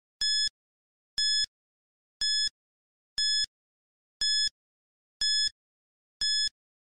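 Countdown timer sound effect: a short, bright electronic beep once a second, seven in a row, each the same pitch and length with silence between.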